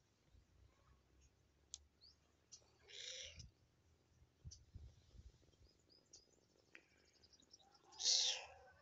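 A small kitten meowing twice, once about three seconds in and more loudly near the end.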